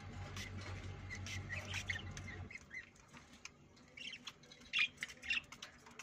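Pet parakeets in a cage giving short, scattered squawks and chirps, busiest in the second half. A steady low hum underneath stops about halfway.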